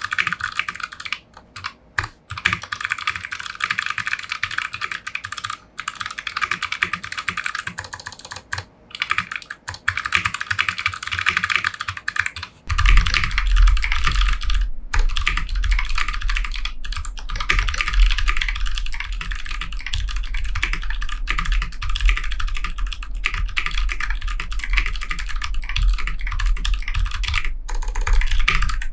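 Typing on a 60% mechanical keyboard with Kailh Box White clicky switches on a brass plate: rapid, continuous key clicks. About halfway through, a steady low rumble comes in under the typing.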